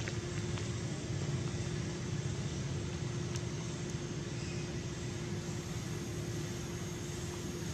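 A steady low rumble with a constant mid-pitched hum running through it and a faint high steady tone above.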